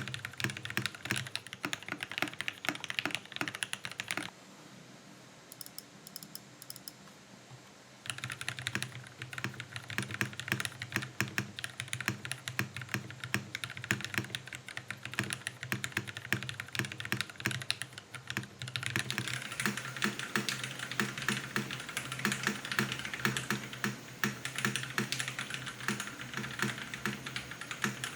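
Steady, fast typing on a Geonworks Frog TKL mechanical keyboard with lubed Cherry MX Black linear switches in an aluminum plate and thick PBT keycaps: a dense run of keystroke clacks. The typing drops away for about four seconds near the start, and from about two-thirds of the way in the clacks sound brighter.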